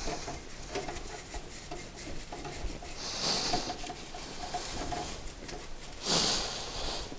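Soapy paper towel rubbed around the bores of a wet, freshly bored two-stroke cylinder block: quiet wiping and scrubbing, with two louder swishes about three seconds in and about six seconds in. It is the wash that clears machining grit from the cylinder before assembly.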